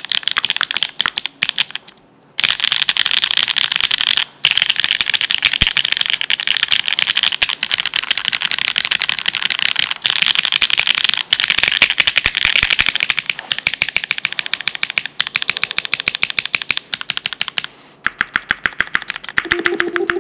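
Fast, continuous typing on a custom mechanical keyboard: GEONLAB F1-8K with an FR4 plate, linear switches made of a NovelKeys Cream POM stem in Cherry black nylon housings, and GMK keycaps, giving a dense stream of keystroke clacks with two brief pauses early on. Music comes in near the end.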